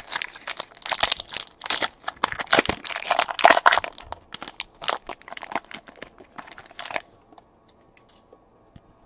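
Foil trading-card pack being torn open and crinkled by hand: a dense run of crackling and tearing that stops about seven seconds in, followed by a few faint clicks.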